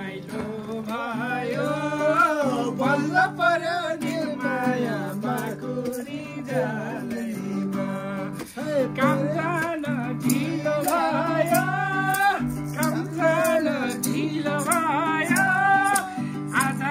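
Nepali dohori folk song: a singer's wavering, ornamented melody over plucked-string accompaniment and a steady low drone, with light percussive clicks.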